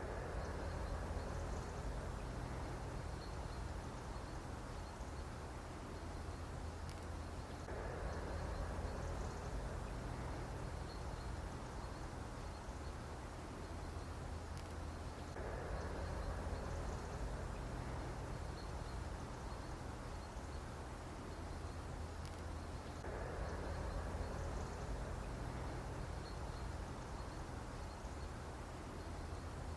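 Mosquito buzzing, swelling and fading in a repeating loop about every seven to eight seconds, over a steady low hum.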